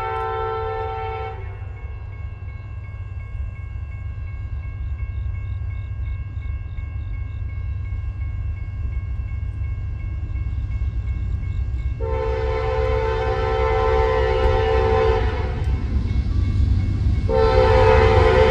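Diesel locomotive air horn on an approaching CSX freight train: a long blast ends about a second in, then two more long blasts begin about twelve and seventeen seconds in. Under it the low rumble of the locomotives grows steadily louder as the train draws near.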